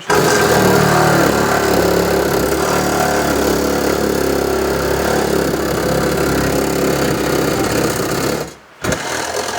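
Reciprocating saw (Sawzall) cutting through car body sheet metal, running steadily, then stopping briefly about eight and a half seconds in and starting again.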